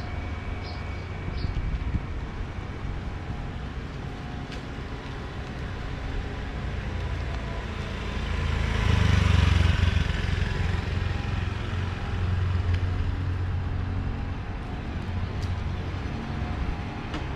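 Street traffic noise with steady engine rumble, swelling as a vehicle passes close about eight to ten seconds in.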